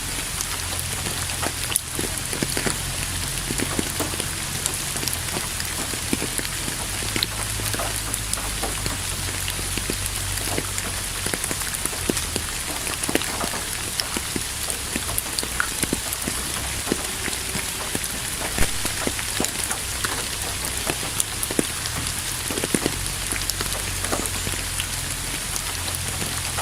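Steady rainfall, with many individual drops pattering sharply on a nearby surface over a constant hiss and a low rumble.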